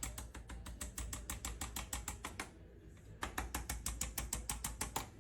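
Two runs of rapid, evenly spaced sharp clicks, about seven a second, from a handheld chiropractic adjusting instrument firing repeated thrusts, with a short break about two and a half seconds in.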